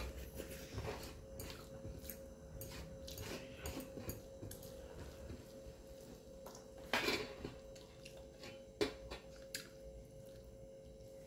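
Quiet eating sounds of a person eating rice and dried meat by hand: chewing and mouth noises, with fingers scraping and tapping a metal plate. A few louder clicks or knocks come about seven and nine seconds in.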